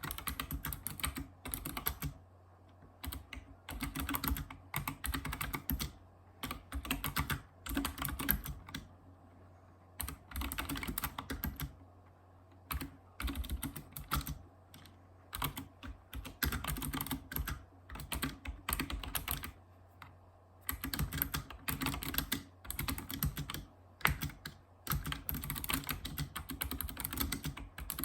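Typing on a Razer Ornata Chroma mecha-membrane keyboard: rapid runs of clicky keystrokes in bursts of a second or two, broken by short pauses.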